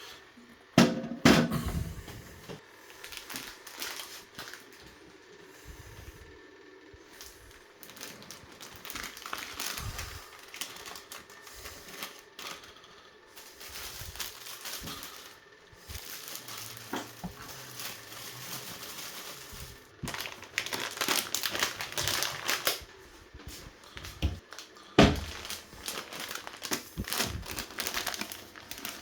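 Things being handled: a sharp knock about a second in and another near the end, with bursts of crinkling, as of plastic bags or packaging, in between.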